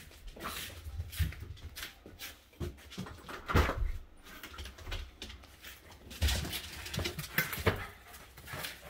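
Irregular footsteps and knocks of a person walking, with rubbing and bumping of a handheld phone against a hand and clothing; the heaviest thumps come about a third of the way in and again in the second half.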